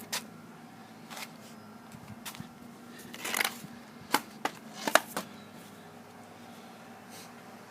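A scatter of light knocks and clicks from something being handled, with a short rustling scrape about three seconds in and the loudest clicks clustered around five seconds in.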